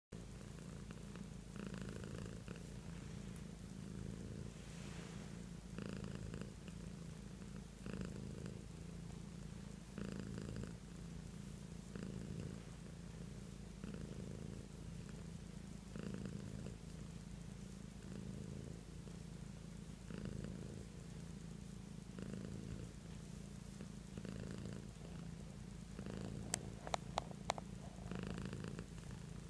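Domestic cat purring steadily while being stroked, the purr swelling and easing about every two seconds. A few sharp clicks come close together near the end.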